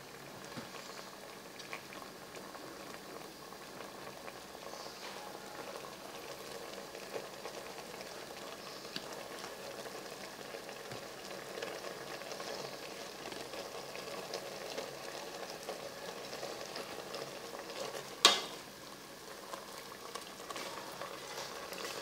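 Thick beef stew bubbling and popping steadily as it simmers in a metal pot. One sharp click near the end.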